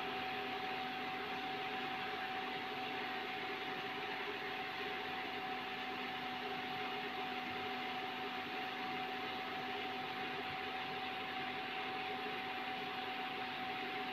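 Steady background hum and hiss with a constant thin whine, unchanging throughout; the knife cutting the soft steamed rolls makes no distinct sound.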